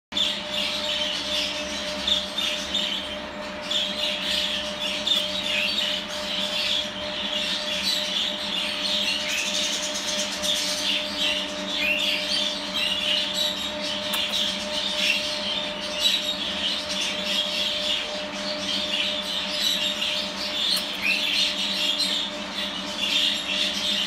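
Budgerigar chattering and chirping without a break, with a steady low hum underneath.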